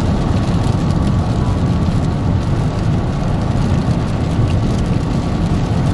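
Steady low rumble of a car heard from inside the cabin, with no break or change.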